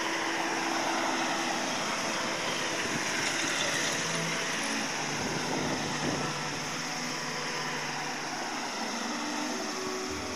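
Distant jet roar of a four-engine Boeing 747-400 freighter banking through its turning final approach: a steady rushing noise that swells a little a few seconds in.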